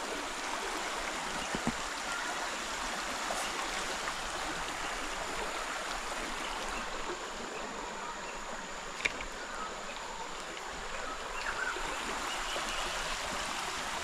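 A stream of water flowing steadily.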